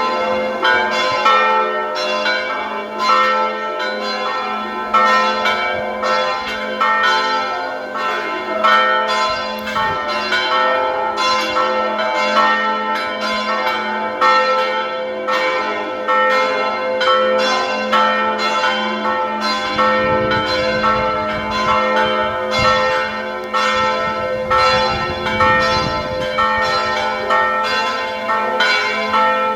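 Church bells pealing: several bells struck in quick, steady succession, about two to three strokes a second, their tones ringing on and overlapping.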